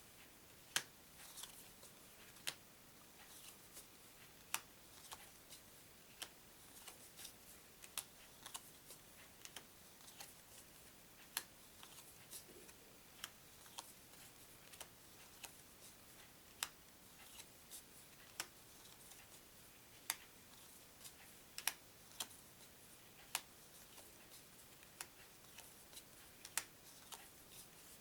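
Playing cards being handled and set down one at a time on a table. Each card makes a sharp click, roughly every second or two, over quiet room tone.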